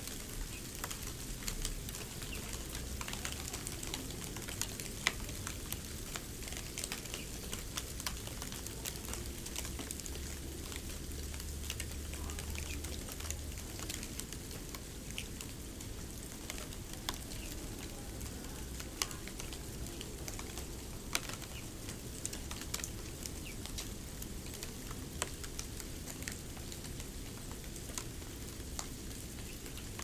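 Snow crackling and crunching close to the microphone: a dense, fine crackle of many small, irregular clicks over a soft hiss.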